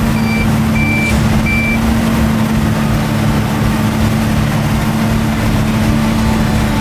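Combine harvester engine running steadily, with a constant low hum. Four short, high warning beeps sound in the first two seconds.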